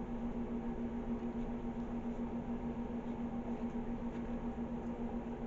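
Microwave oven running with a steady hum while it heats carob to melt it.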